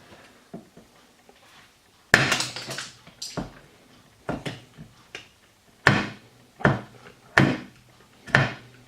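A string of sharp knocks and clicks, roughly one a second starting about two seconds in, from hand tools and the freshly soldered EC5 battery connector being handled on a hard surface.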